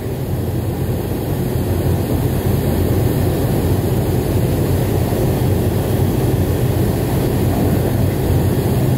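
Steady low drone of aircraft engines and rushing air, heard inside the cabin of a camera plane flying in formation with another airliner.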